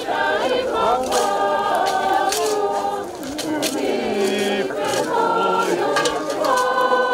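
A group of voices singing unaccompanied, holding long notes that step from pitch to pitch, with short sharp scrapes through the singing.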